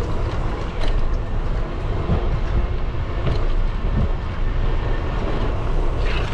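Wind buffeting the microphone and tyre rumble from a bicycle being ridden: a steady low rumble with a few faint ticks.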